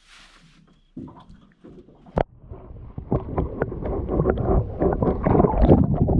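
Water splashing and bubbling around a submerged camera as a bass is lowered into the lake and released by hand. There is a sharp knock about two seconds in, then a dense crackle of splashes and bubbles that grows louder toward the end.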